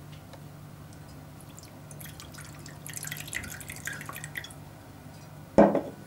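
Clear liquid trickling in a thin, uneven stream from a small glass bottle into a small ceramic cup, starting about two seconds in. Near the end the glass bottle is set down on the countertop with one sharp knock, the loudest sound.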